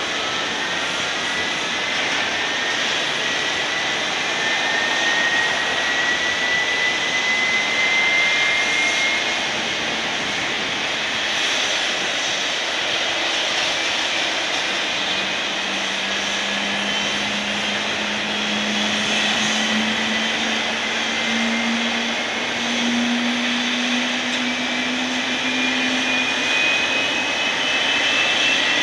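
An airliner's turbofan engine spooling up at engine start over a steady loud rush. A high mechanical whine slowly rises in pitch, and a lower hum comes in about halfway and climbs too.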